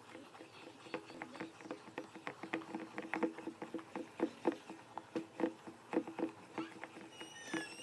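Wet, sticky clicks and squelches of homemade slime (glue, soap and shaving cream) being stirred in a bowl, irregular, several a second, with a short high squeak near the end.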